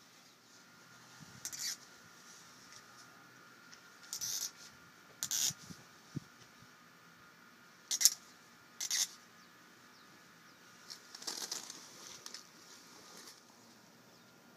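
A run of about half a dozen short scraping and rustling bursts as a brass saddle valve is tightened by hand onto a disposable e-cigarette to pierce its battery. The loudest comes about eight seconds in.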